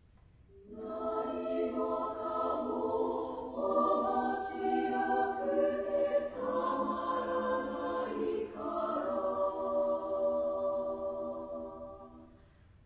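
Women's choir singing sustained chords, coming in about half a second in and moving to a new chord every two to three seconds, then fading away near the end.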